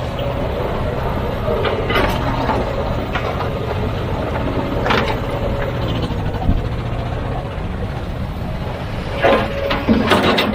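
Heavy diesel earthmoving machinery running steadily, with sharp clanks and knocks now and then and a cluster of them near the end.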